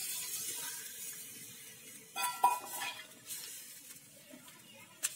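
Metal spoon stirring a thin curry in a clay pot, with ringing metal clinks a little over two seconds in and a sharp tap near the end. A sizzling hiss from the tamarind water just poured into the hot pot dies away over the first second.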